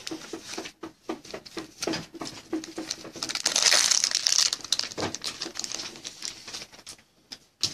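Foil wrapper of a pack of trading cards crinkling in the hands as it is opened: a string of short crackles, with a longer, louder rustle about four seconds in.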